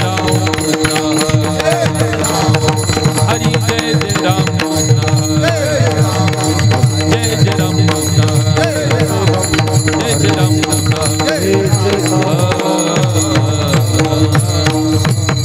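Kirtan accompaniment between sung verses: a fast, steady hand-drum rhythm under sustained held notes, with small cymbals jingling throughout.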